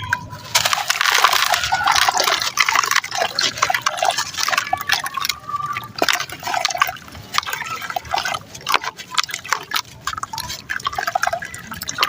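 Lumps of sand cement crumbling and breaking up in water: a dense crackle of many small clicks and drips, loudest in the first few seconds.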